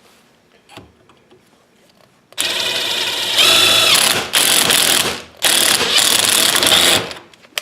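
Electric drill running in four short bursts with brief pauses, after a couple of seconds of faint handling sounds.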